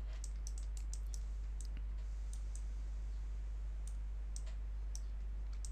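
Computer mouse clicking: a dozen or so short, irregularly spaced clicks over a steady low hum.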